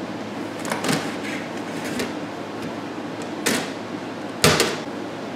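Metal louvered fan shutter being worked into a wall opening: a few sharp knocks and rattles of its frame and louvers, about a second in, about three and a half seconds in and loudest about four and a half seconds in, over a steady low background hum.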